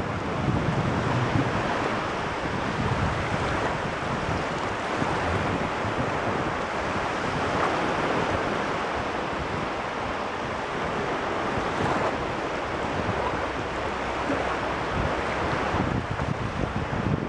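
Caspian Sea waves washing on the shore in a steady, continuous surf, with wind rumbling on the microphone.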